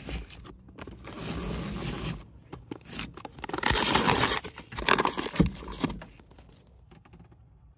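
Paper wrapper being torn and pulled off a firework cake box, a series of rough ripping and crinkling sounds that stop about six seconds in.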